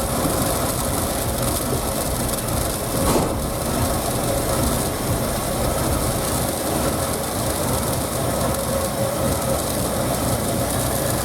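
1984 Ford F-150 engine running steadily just after starting, with a brief louder surge about three seconds in.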